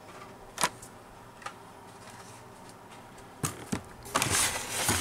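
Blister-carded Hot Wheels die-cast cars being handled: a few light plastic clicks, then rustling and clatter near the end as the cards are pulled out of a cardboard case.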